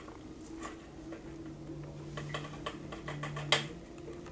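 Faint, irregular clicks and taps of a thin wooden applicator stick against a plastic bottle as it is dipped in and worked around, with a louder tap near the end, over a low steady hum.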